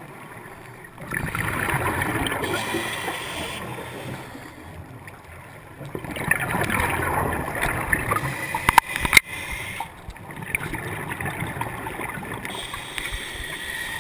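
Scuba regulator exhalation bubbles: three rushes of bubbling noise, each about three seconds long, with quieter pauses between them for the inhale. A few sharp clicks come about nine seconds in.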